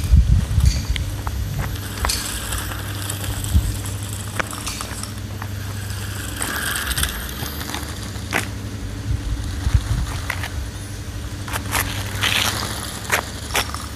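Three-wheeled RC car driving, with scattered clicks, knocks and crackles from its running over the ground above a steady low hum.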